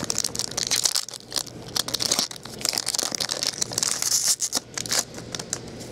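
A foil trading-card pack wrapper crinkling and tearing as a pack is opened and handled, with the cards clicking and sliding against one another in a run of short crackles and rustles.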